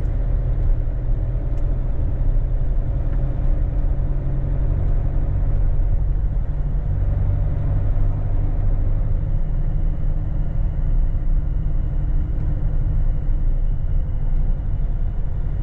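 A car's engine and road noise heard from inside the cabin while driving: a steady low rumble with a faint engine hum.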